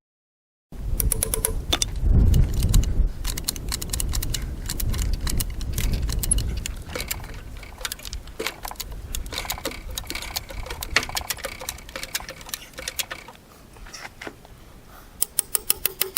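Farm jack being worked with a run of sharp metallic ratcheting clicks and rattles, as it is let down and reset for another bite under the log. Heavy low knocks and rumbling in the first several seconds, and a quicker, even series of clicks near the end.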